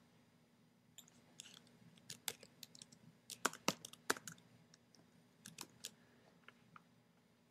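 Typing on a computer keyboard: a run of faint, irregular key clicks, thickest in the middle, then a few scattered clicks toward the end.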